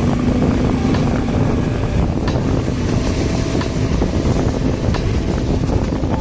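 Wind buffeting the microphone over the steady running noise of a vehicle travelling along a road, with a few light clicks.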